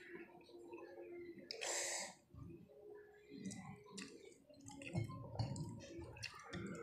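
Close-up eating sounds of people eating with their hands: chewing, lip smacks and small clicks, with a brief hiss about two seconds in and a faint steady hum underneath.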